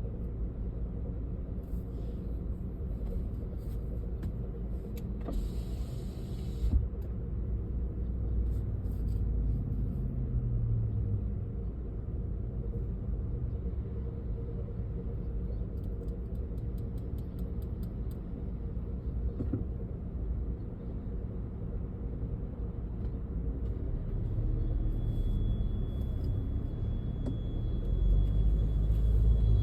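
Car driving: a steady low rumble of engine and road noise, with a few faint clicks and a brief louder tick about seven seconds in.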